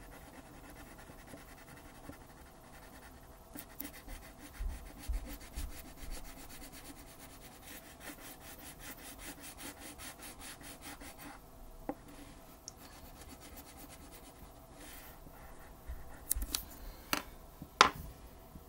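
Wax crayon scribbling on paper as a letter is coloured in: rapid back-and-forth scraping strokes that start a few seconds in and stop about two-thirds of the way through, with softer rubbing around them. A few sharper knocks and rustles come near the end.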